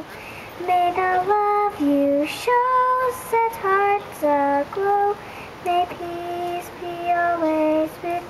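A young girl singing solo into a microphone: a slow melody of held notes with short breaks for breath between phrases.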